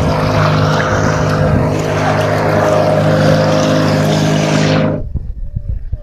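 Engine of a motorized outrigger boat running steadily at cruising speed, with water rushing and spraying along the hull. About five seconds in the sound cuts off abruptly, leaving only a faint low rumble.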